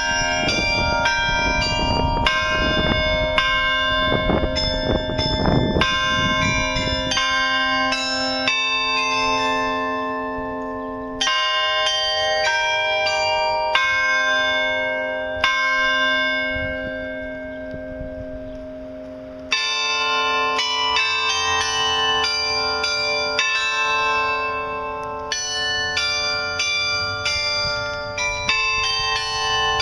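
Carillon bells of the New Ulm Glockenspiel clock tower playing a tune, struck notes ringing on and overlapping. The playing thins out twice, the second time a little past the middle for about three seconds, with the notes left to ring down. A low rumble sits under the first several seconds.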